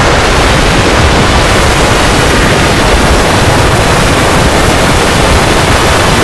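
Loud, steady static-like noise filling every pitch from deep rumble to high hiss, without any tone or rhythm: a harsh scary sound effect.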